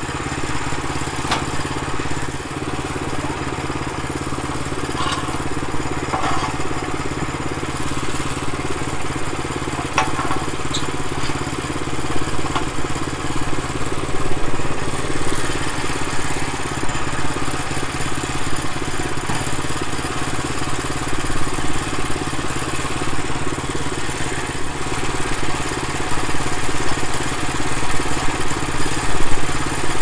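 Small gasoline engine of a Woodland Mills portable band sawmill idling steadily with the blade not cutting. A few short knocks and clanks in the first ten seconds or so as the red cedar log is handled on the mill bed.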